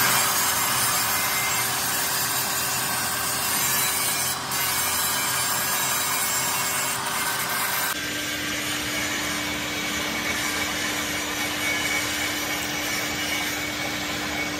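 Coal forge fire under forced air: a steady rushing noise with a constant hum beneath it, the hum dropping to a lower pitch about eight seconds in.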